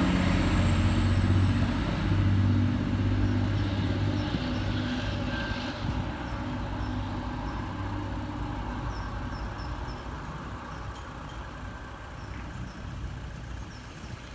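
Class 185 diesel multiple unit moving away down the line, its diesel engine note loud at first and dying away over the first few seconds. Fainter running and rail noise fades on after it.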